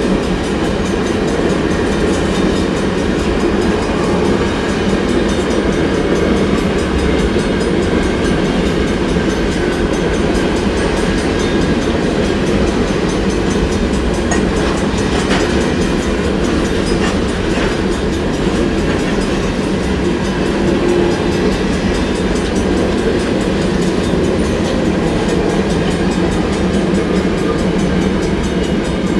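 Freight train of empty potash covered hoppers rolling past, steel wheels on rail making a steady rumble.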